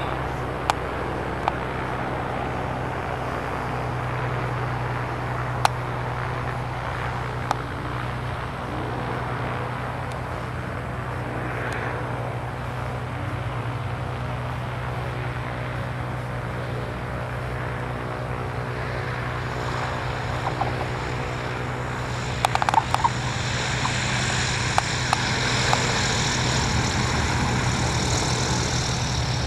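Steen Skybolt biplane's piston engine and propeller running steadily as the aircraft flies and comes in to land. A brighter hiss rises from about two-thirds through, with a few short clicks.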